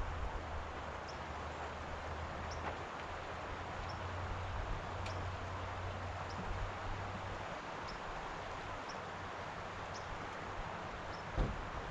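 Outdoor ambience: a steady hiss like wind through leaves, with faint short high chirps about once a second and a low hum that fades out past the middle. A single knock sounds near the end.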